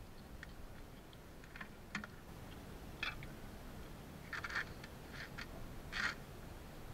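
Knife filleting a bonito on a metal tray: a series of short, scraping cuts, about eight in all, with the longest and loudest strokes a little past four seconds in and at about six seconds.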